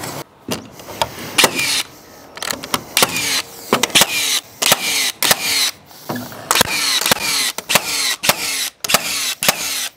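HiKOKI cordless framing nailer driving nails into roof-truss timber. It fires a quick series of sharp shots, with a whirring motor sound between them.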